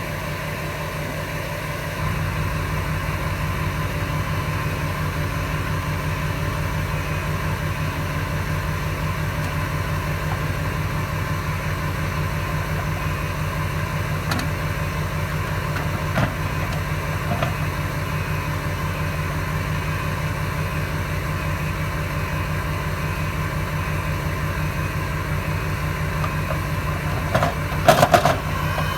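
A vehicle engine idling steadily, getting a little louder about two seconds in, with a few faint clicks and a brief loud clatter near the end.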